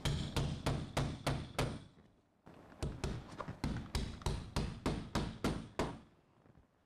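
Claw hammer driving plasterboard nails through plasterboard into a stud: a run of sharp strikes about three a second, a short pause about two seconds in, then a longer run of about ten strikes.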